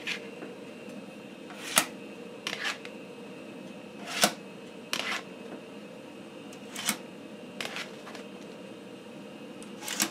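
3.5-inch floppy drives ejecting diskettes one after another: four sharp clacks, about two and a half seconds apart, as each eject button is pressed and the disk pops out, with lighter double clicks between them as the diskettes are handled. A steady machine hum runs underneath.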